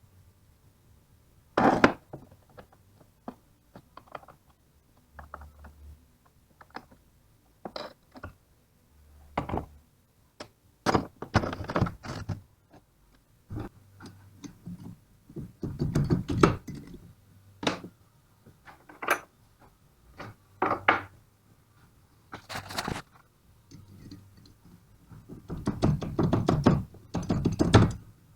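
Irregular knocks and clunks of metal tools and alternator parts being handled and set down during bench disassembly of a car alternator, busier and louder near the end.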